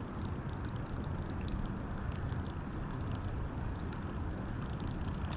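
Steady rushing of river water around a kayak, with faint small ticks scattered through it.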